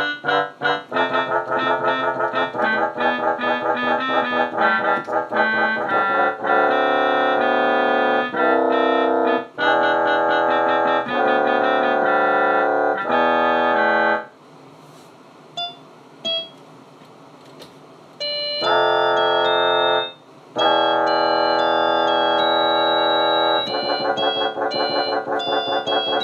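Electronic keyboard played on its trumpet voice: quick runs of notes, then long held chords. About halfway through it stops for roughly four seconds apart from a couple of short notes, then held chords resume, turning into quick repeated notes near the end.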